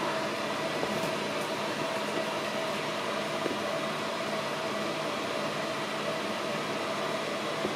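Steady mechanical hum and hiss with a constant mid-pitched tone, unchanging throughout.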